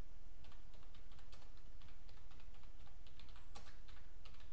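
Computer keyboard being typed on: a quick, irregular run of key clicks, with a few louder strokes among them, over a steady low hum.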